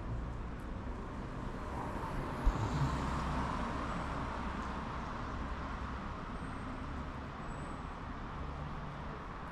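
Road traffic on a city street: a steady hum of cars, with one vehicle passing and swelling louder between about two and four seconds in. A single sharp thump comes about two and a half seconds in.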